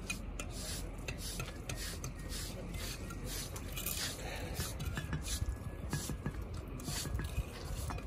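Steel bricklayer's trowel scraping and scooping wet mortar, a steady series of short gritty scrapes and light taps of metal against mortar and brick, about two a second.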